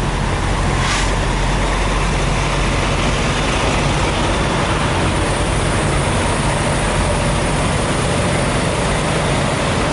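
Parked semi trucks' diesel engines idling, a steady low drone under a constant rushing hiss, with one brief click about a second in.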